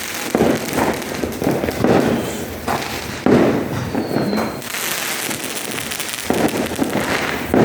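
Aerial fireworks going off in a rapid series of bangs, roughly one every half second to second, each trailing off into crackle and echo.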